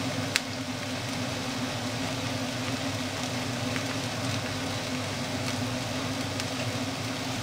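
Chopped onion frying gently in a pan, a soft sizzle over a steady mechanical hum, with a single sharp click about half a second in.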